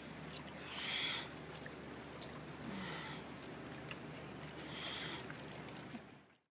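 Steady outdoor noise of wind and sea, with three short high cries about two seconds apart, the first the loudest. The sound cuts off just before the end.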